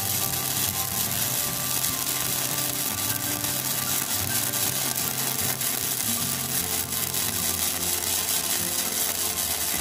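Gasless flux-core MIG arc from a KOBE MIG-235K inverter welder, crackling and sizzling steadily as it lays one continuous bead on a steel bar.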